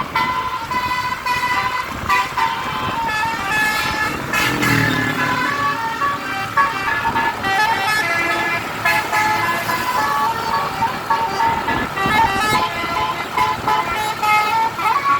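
Bus 'telolet basuri' musical air horn playing a tune, its notes stepping up and down, repeated without a break. A lower-pitched tone sounds briefly about four seconds in.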